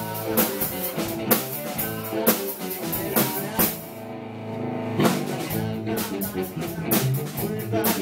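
Live rock band playing instrumental music on drum kit, electric guitar, bass and keyboard. About halfway through, the drums drop out for roughly a second while the guitar and keys ring on, then the drums come back in.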